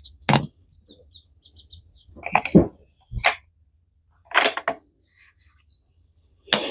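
A bird chirping in a quick run of short high notes about a second in, among several sharp clicks and knocks from handling a bolt-action .22 rimfire rifle; the loudest knock comes about two and a half seconds in.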